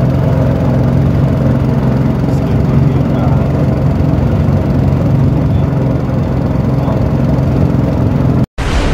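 Small boat motor running steadily, newly mounted and tested as working. The sound breaks off abruptly near the end.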